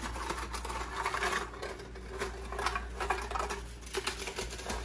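Graham crackers snapping and crunching as they are broken by hand into a blender jar: an irregular run of small cracks and clicks.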